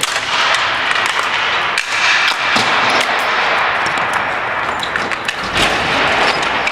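Ball hockey game play: frequent sharp clacks and knocks of sticks and ball striking the floor and boards over a steady wash of noise.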